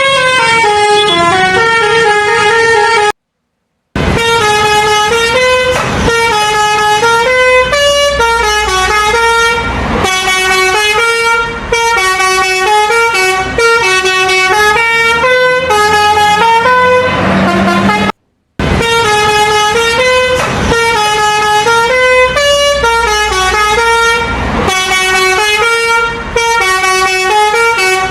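Bus 'telolet basuri' musical air horn playing a loud repeating melody of held notes that step up and down in pitch. The sound cuts out to silence twice, briefly: about three seconds in and again about two thirds of the way through.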